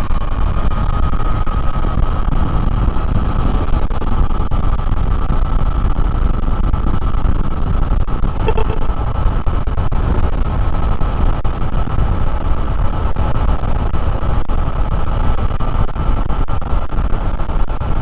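Wind noise inside a motorcycle helmet at road speed, picked up by a microphone beside the rider's ear: a steady rush with heavy low buffeting and a thin high tone running through it. The rider has a windscreen in front and a scarf wrapped around his neck to cut the noise. A brief click about halfway through.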